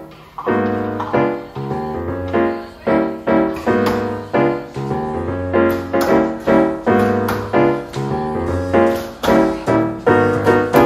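Background piano music, notes and chords struck in a steady rhythm about twice a second, each ringing and fading before the next.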